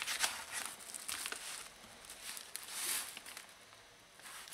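A blunt knife sawing and scraping at the plastic wrapping of a parcel, the plastic crinkling and rustling in short irregular strokes, with one louder scrape about three seconds in.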